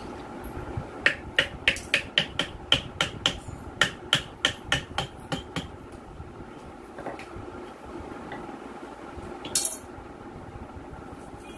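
A hammer tapping about fifteen times in quick succession, roughly three blows a second with a ringing metallic note, at the rear end of a rice-mill electric motor as the plastic cooling fan is knocked onto its shaft. A single sharp clatter follows near the end.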